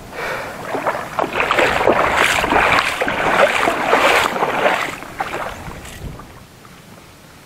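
Shallow seawater splashing and sloshing in many quick, irregular splashes, loudest in the first five seconds, then dying away to a faint hiss.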